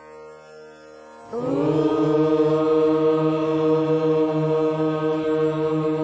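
The syllable Om chanted in one long, steady tone that begins about a second in, over a soft steady drone.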